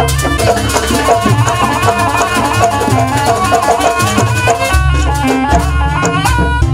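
Traditional Javanese jaranan accompaniment music: fast, dense drum strokes with rattling percussion under a held melody line and a heavy low bass.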